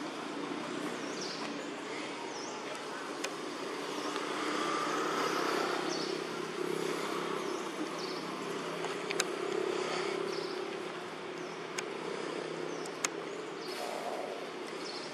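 Outdoor ambience: a distant motor vehicle's hum swells for several seconds and then fades. A short high chirp repeats about once a second, and a few light clicks come through.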